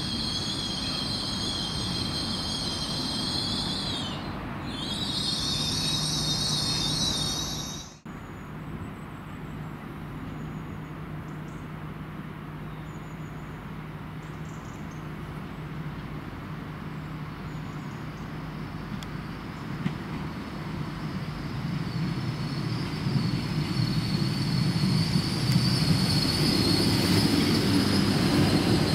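Trains at a station: a train running with a high wheel squeal that cuts off abruptly about a quarter of the way in. Then a steady low hum, with another train approaching, growing louder and squealing again near the end.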